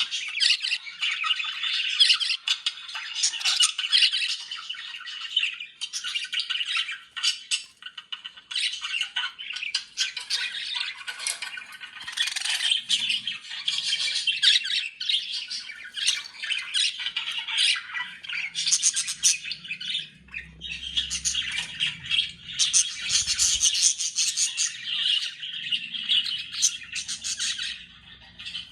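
Budgerigars chattering and warbling continuously, a busy stream of rapid high-pitched chirps, squawks and trills.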